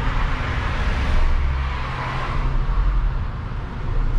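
A steady low rumble with an even hiss over it.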